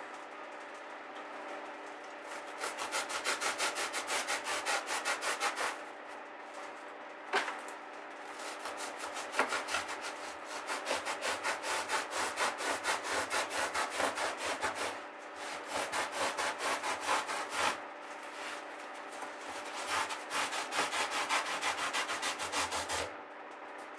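Thick upholstery foam being cut with a knife: quick back-and-forth sawing strokes of the blade through the foam, in several runs of a few seconds each with short pauses between.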